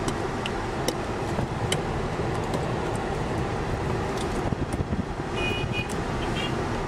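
Steady road and engine noise of a moving vehicle, with a few faint clicks and knocks.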